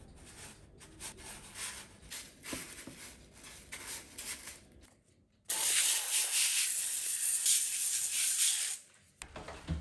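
Panko breadcrumbs rustling and crackling in a metal tray as chicken wings are pressed and turned in them. About five and a half seconds in, a louder steady hiss of olive oil being sprayed over the breaded wings lasts about three seconds.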